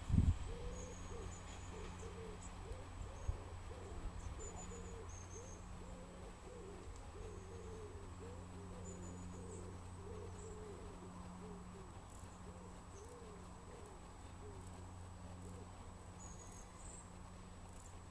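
Low, steady rumble of a train drawing away, hauled by a Class 31 diesel, with two low thumps right at the start. Over it a dove coos repeatedly, its calls dying out near the end, and small birds chirp faintly now and then.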